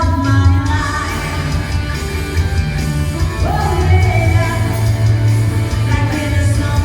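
Live amplified band playing with a singer during a sound check, a heavy steady bass under the vocals, echoing in a large hall.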